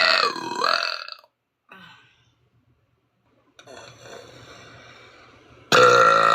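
A woman's long, loud burps with a wavering pitch: one trails off about a second in, and a second one starts loud near the end, with a quieter rough gurgle between them.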